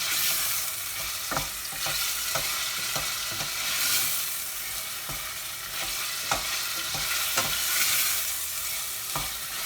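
Chicken pieces sizzling as they fry in hot oil in a pan, with a wooden spoon knocking and scraping against the pan as it stirs them at irregular intervals. The chicken is being sealed on quite a high heat and is starting to stick.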